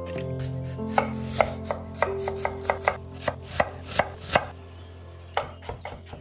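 Chef's knife slicing green chilies on a wooden chopping board: a quick run of crisp cuts, about three or four a second, then a pause and a few more cuts near the end.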